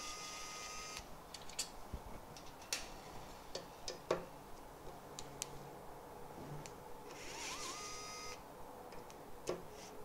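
ES121 pen-style electric screwdriver's small motor whirring in two short runs, one at the start and one about seven seconds in, each rising quickly to a steady whine as it turns screws. Light clicks and taps of the tool on metal parts come in between.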